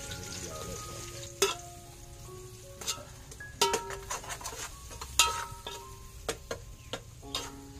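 Metal spoon stirring food in an aluminium cooking pot over a fire, knocking against the pot about seven times, each knock followed by a brief metallic ring, over a faint steady sizzle.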